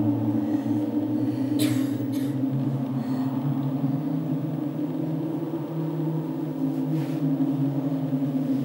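A low, steady drone of several held tones, like a sustained stage soundscape, with a few brief rustling sounds about two seconds in and again near seven seconds.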